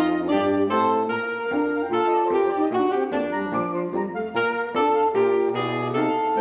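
Saxophone quartet playing a tune in harmony, its notes held and changing every half second or so.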